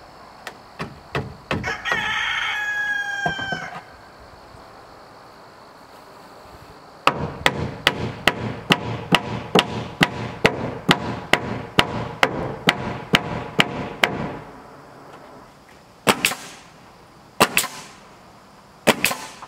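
A rooster crows once, about two seconds in. Later a hammer drives nails into a trim board: a fast, even run of about twenty sharp blows at roughly three a second, each with a short metallic ring. Three more single knocks come near the end.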